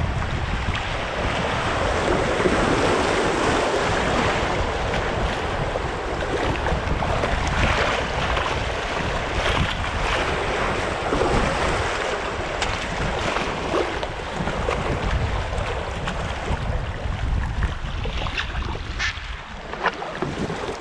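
Rushing whitewater of a river rapid around a canoe, with wind buffeting the microphone as a low rumble. A few sharper splashes come near the end.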